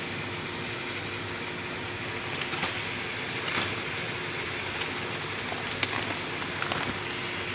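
Steady background hiss with a faint low hum, broken by a few faint short clicks.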